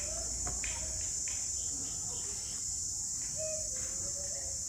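A steady, high-pitched insect drone, with faint voices in the background.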